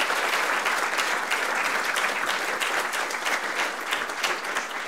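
Audience applauding, many hands clapping together and easing off slightly near the end.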